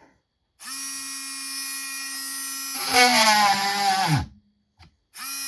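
Warrior rotary tool with a drill bit running at a steady high whine, then bogging down with a falling pitch as it is pushed into wood and stopping; it stalls when fed fast. It starts up again near the end.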